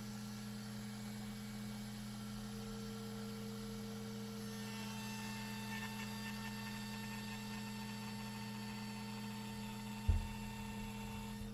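Steady electrical hum, a few unchanging low tones, with a single short thump about ten seconds in.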